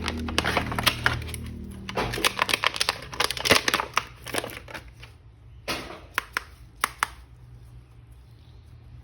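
Plastic action-figure parts and packaging being handled: a rapid run of clicks and crinkling, then a few separate sharp plastic clicks a little past halfway before it goes quieter.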